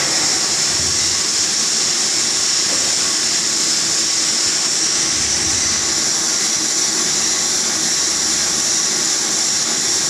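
Vertical machining centre running, a steady high-pitched hiss over a faint hum.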